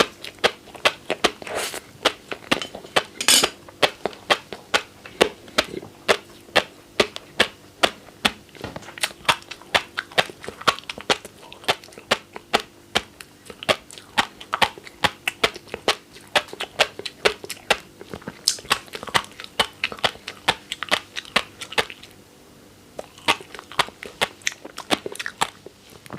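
Fish roe being chewed close to the microphone, the eggs popping and crunching in a quick run of sharp clicks, about two or three a second, with a short pause near the end.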